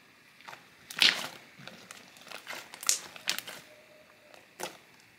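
Homemade glue-and-lotion slime being stretched and kneaded by hand, trapped air popping out of it in a string of sharp clicks and crackles, the loudest about a second in.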